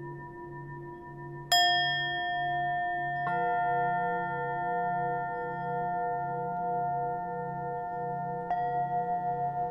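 Ambient background music of long ringing bell-like tones. New notes strike about a second and a half in, again around three seconds in, and near the end, over a low tone that pulses about twice a second.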